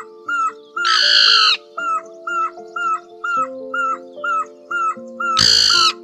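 Barbet calls over background music: a short hooked note repeated about three times a second, with two loud, longer calls, about a second in and near the end.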